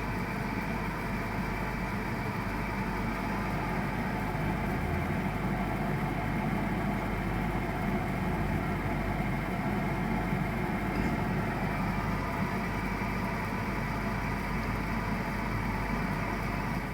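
BAXI Main 5 14F wall-hung gas boiler running with a steady mechanical hum.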